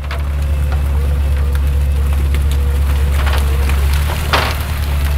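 Masses of salmon spilling out of a purse seine onto a fishing boat's deck, a wet pattering and slapping with a few louder thumps about three and four seconds in, over the steady low drone of the boat's machinery.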